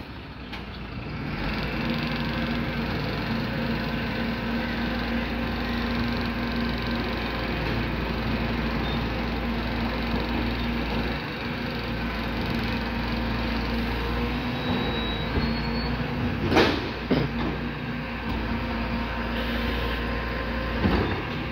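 MAN TGM 26.340 truck's diesel engine running at raised revs to drive the side-loader arm's hydraulics as the arm grips and lifts a recycling bin; the engine note steps up about a second and a half in and then holds steady. A loud sharp knock comes about three quarters of the way through, and a second one near the end.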